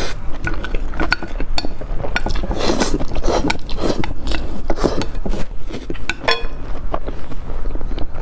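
A person eating, with bites and many short clicks and clinks of cutlery against dishes.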